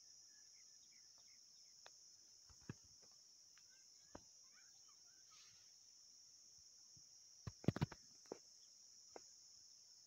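A faint, steady, high-pitched drone of insects, with a few scattered clicks and a short cluster of knocks about three-quarters of the way through.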